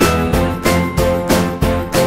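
Upbeat instrumental background music with a steady, quick beat and bright bell-like notes.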